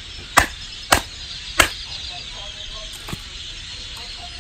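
Three sharp wooden knocks about half a second apart, then a fainter fourth about three seconds in: a wooden baton striking a blade set in a log, splitting firewood into kindling.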